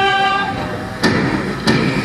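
A held musical chord cuts off about half a second in, followed by a noisy rumble with two sharp thuds.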